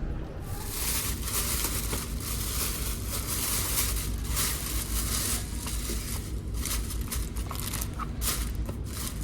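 Plastic packaging crinkling and tearing as it is handled and opened, in a dense run of sharp crackles.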